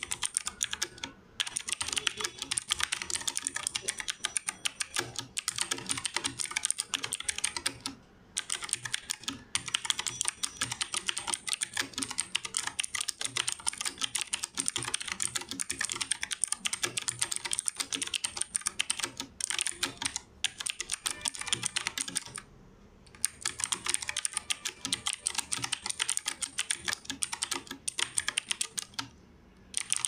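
Fast typing on an E-Yooso Z686 compact mechanical keyboard with stock blue clicky switches: a dense, rapid stream of sharp key clicks, broken by a few brief pauses.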